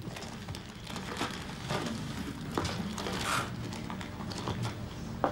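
Paper rustling and crinkling as it is handled, with scattered light clicks and knocks throughout.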